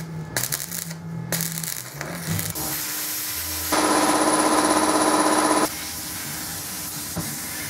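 Semi-automatic MIG welder laying a weld on sheet steel: a steady crackling, buzzing arc for about two seconds in the middle, after scattered clicks of steel parts being handled.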